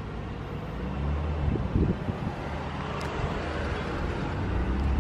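A steady low outdoor rumble with a hiss that swells a little about three seconds in.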